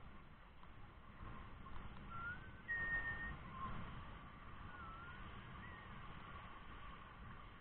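Rushing river water with a steady low rumble, and a few short whistled notes over it about two to six seconds in: some gliding up or down, one held steady.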